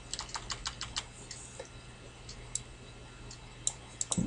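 Computer keyboard keys being tapped, typing the same zero key over and over: a quick run of about eight clicks in the first second, then single clicks every half second or so.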